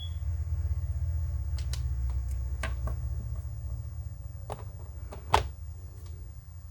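Scattered small clicks and taps from handling a boxed action figure and its plastic packaging, with the sharpest click about five seconds in, over a steady low rumble.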